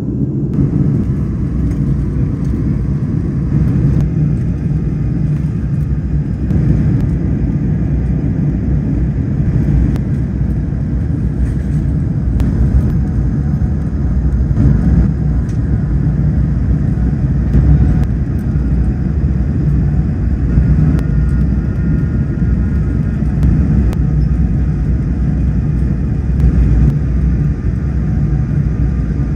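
Airplane cabin noise in flight: a steady low rumble of engines and airflow heard from inside the cabin, with no break or change.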